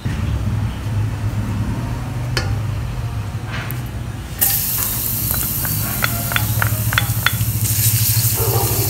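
Minced garlic hitting hot oil in a stainless steel pot and sizzling, starting suddenly about four and a half seconds in, with short ticks as a wooden spatula stirs it against the pot. A low steady hum runs underneath throughout.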